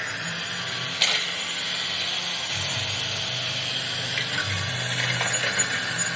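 Radio-controlled toy excavator's small electric motors and plastic gears whirring as its arm lowers and its cab slews round, with one sharp click about a second in.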